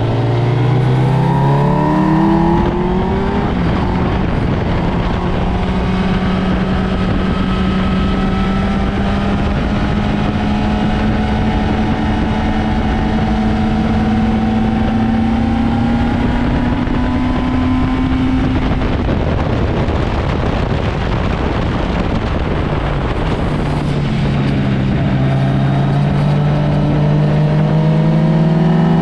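Sport motorcycle engine under hard acceleration on a race track, with a rushing noise beneath it. Its pitch climbs over the first couple of seconds, then stays high and slowly rises for a long stretch. It drops off about two-thirds of the way through and climbs again near the end.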